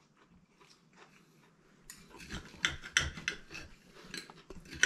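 Knife and fork scraping and clicking on a ceramic plate as food is cut, an irregular run of short scrapes and clicks starting about two seconds in.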